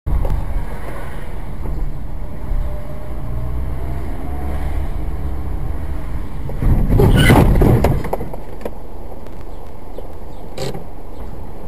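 A car on the road: steady low rumble of engine and tyres, with a louder rush of noise lasting about a second a little past halfway and a sharp click near the end.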